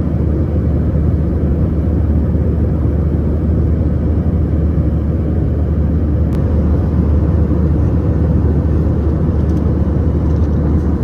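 Airliner cabin noise: a loud, steady low rumble of engines and airflow.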